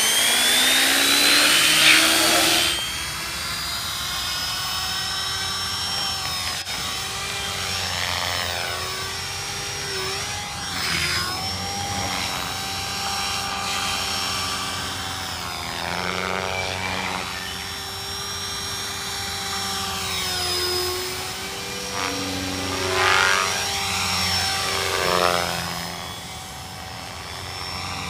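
M.S.H Mini Protos 6S electric RC helicopter. Close up on the grass, its motor and rotor whine climbs in pitch as it spools up. Then, in flight, a steadier whine and blade drone that swells and fades several times as it passes back and forth.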